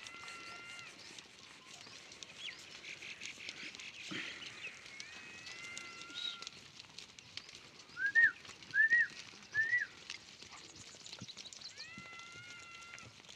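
Goats bleating as a herd walks: a few held, steady bleats come and go, and a little past the middle three short, loud calls rise and fall one after another.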